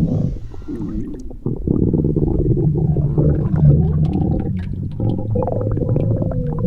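A person's stomach growling: a continuous run of low, bubbling gurgles and rumbles, with a drawn-out whine that falls slightly in pitch near the end.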